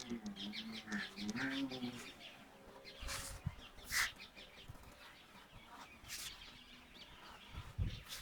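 Faint bird and chicken calls in the background, with a few short, soft swishes about three, four and six seconds in.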